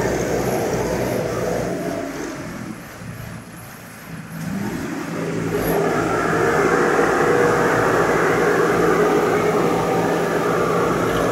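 Diesel engine of a Bull backhoe loader running close by. It eases off about three seconds in, then revs up again and runs loud and steady as the machine drives with a loaded front bucket.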